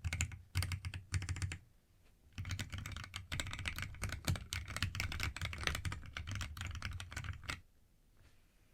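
Mechanical keyboard with AKKO CS Jelly Black linear switches being typed on in fast runs of keystrokes, with a short pause about a second and a half in; the typing stops near the end.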